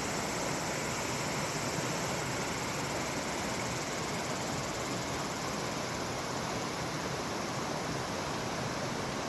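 Mountain stream water rushing over rocks, a steady even rush.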